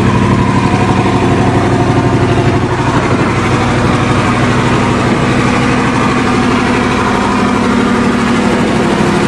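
Diesel engine of a Ford truck running steadily with an even clatter, freshly started cold and not yet warmed up.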